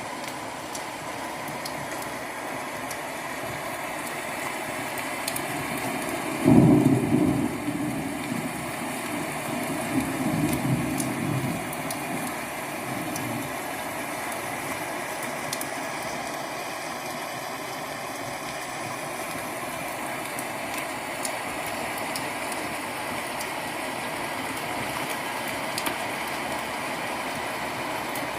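Recorded rain-and-thunder ambience played through a Tronsmart Mirtune C2 speaker: steady rain throughout, with a sudden thunderclap about six seconds in that rumbles on and swells again for several seconds.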